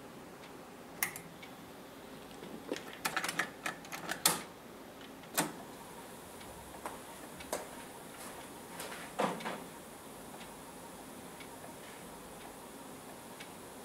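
Clicks and clunks from an Aurex PC-X60AD cassette deck being switched on and put into play: a scattered series of sharp mechanical clicks, bunched and loudest about three to four seconds in, fewer after that, over a faint steady hiss.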